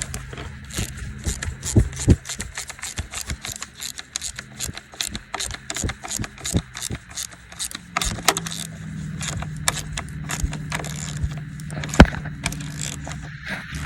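Metallic rattling and rapid clicking of work on a Ford backhoe, over the steady hum of its diesel engine running, which gets louder about eight seconds in. One sharp metal knock stands out near the end.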